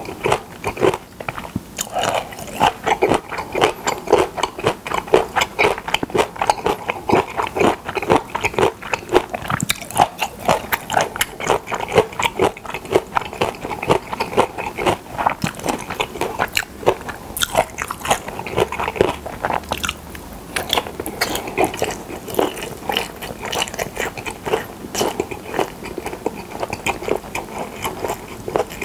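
Close-miked chewing of pressed boiled pork slices and seasoned dried radish strips: continuous wet smacking and crunching bites, with no words.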